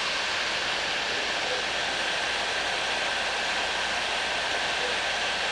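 Bauer heat gun running steadily, a constant rush of blown air with a faint high whine, while it heats a copper pipe joint for soldering.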